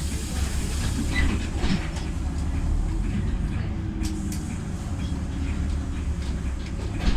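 Inside a LiAZ 5292.67 city bus under way: its YaMZ-53624 compressed-natural-gas engine and the road give a steady low rumble, with the cabin rattling and clicking now and then.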